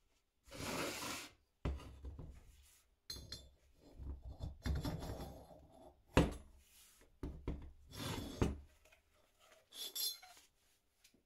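Irregular bursts of scraping and rubbing with light metallic clinks, as metal parts are worked and handled by hand, several starting with a sharp knock.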